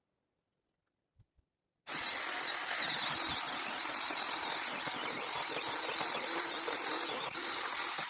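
Mini chainsaw running: after near silence it comes on suddenly about two seconds in and runs steadily for about six seconds, cutting off abruptly at the end.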